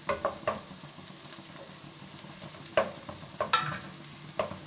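Vegetables frying in oil in a metal pan, a low steady sizzle, as chopped capsicum is tipped in from a steel bowl. Quick metal clinks come right at the start, then a few knocks against the pan. The loudest knock, about three and a half seconds in, rings briefly.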